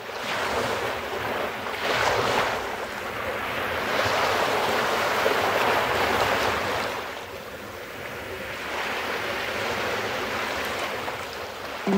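Small sea waves washing onto a sandy shore and drawing back, swelling and easing every few seconds.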